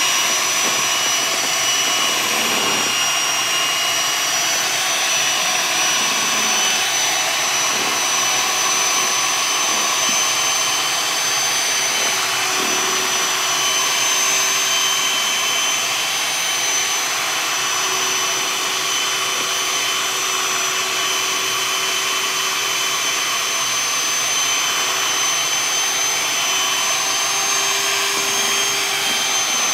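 Handheld electric mixer running steadily, its beaters churning chocolate cake batter in a bowl, with a high, steady motor whine.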